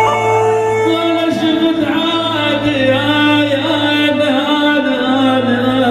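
Iraqi dabke wedding music: a voice singing a wavering, ornamented melody over a steady low drone.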